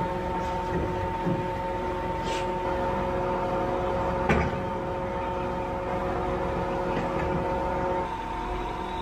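Steady machine hum with a few even tones, with a single sharp metal clank about four seconds in as a PTO driveshaft is handled at a tractor's three-point hitch. A short hiss comes about two seconds in.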